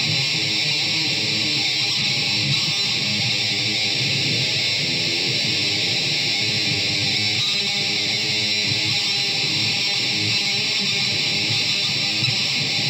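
Solo electric guitar playing a continuous run of notes, with a steady bright hiss beneath them.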